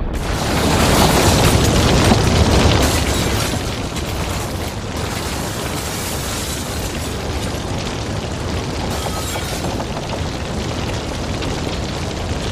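Spilled rubbing alcohol from a tipped-over soda-can stove burning in large flames with a steady rushing noise, loudest in the first few seconds and then settling a little lower.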